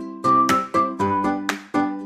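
Light background music: a bouncy melody of short, quickly fading notes, a few to the second.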